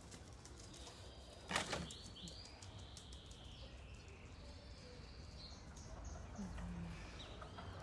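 Chickens calling with high chirps and a short low call, and a brief loud flutter of wings about a second and a half in.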